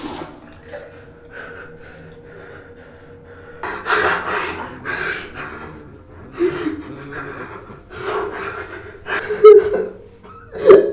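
A man breathing heavily and gasping, the distressed breathing of a panicking, sleepless man. It is quiet at first; from about four seconds in come a string of loud, ragged breaths and gasps, each about a second apart, over a faint steady hum.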